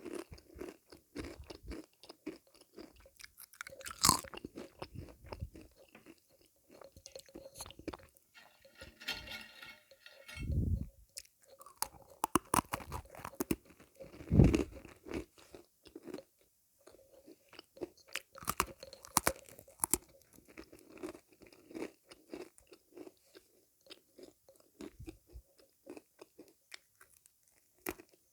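Close-up crunching and chewing of crunchy sweets: a steady run of irregular crisp crunches and mouth sounds, with the sharpest crunches about four seconds in and near the middle.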